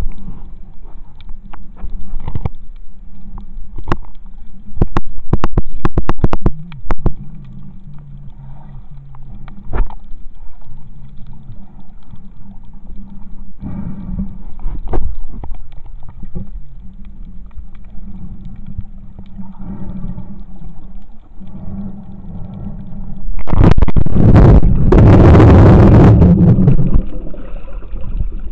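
Underwater sound heard through a camera's waterproof housing: a steady low drone with a scatter of sharp clicks and knocks, thickest a few seconds in. Near the end, a loud rushing burst lasts about three seconds.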